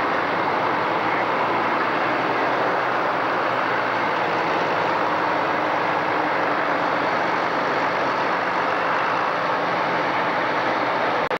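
Farm-stock pulling tractor's diesel engine running loud and steady while hooked to the pulling sled before its pull, with a brief dropout just before the end.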